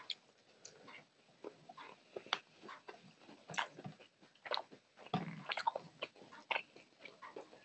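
Close-miked eating sounds: fingers squishing and mixing rice and curry on a metal plate, with irregular wet clicks and smacks of chewing.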